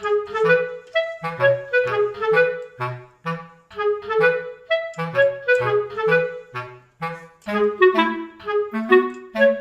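Background music: a light woodwind melody, clarinet-like, over a bass line, moving in short separate notes.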